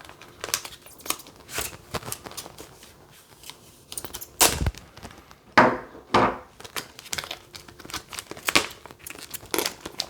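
Stiff, ultrasonically welded plastic clamshell packaging being forced open, crackling and snapping irregularly, with a few loud sharp cracks around the middle.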